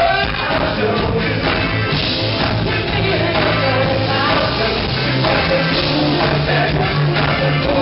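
Live funk band playing: a prominent electric bass line, drums and guitar, with a voice singing over them.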